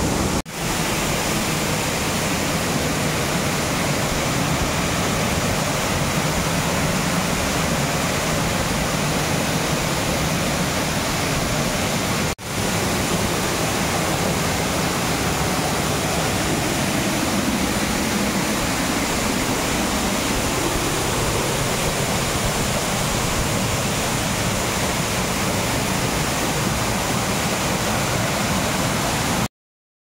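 Bara Bakhra waterfall pouring over rock ledges, heard close to the falls: a steady, loud rush of falling water. The sound dips out for a moment twice and cuts off just before the end.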